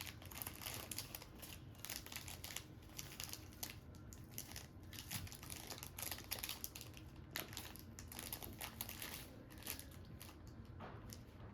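Wrappers of cookie-decorating supplies crinkling and crackling as someone handles and rummages through the packets, a continuous irregular run of small crackles.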